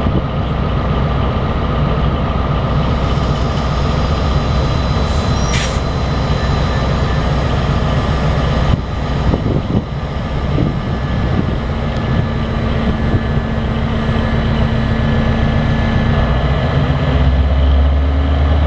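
Diesel locomotive engine running steadily, with a brief high squeal about five and a half seconds in. Near the end the engine grows louder and deeper, its note rising slightly.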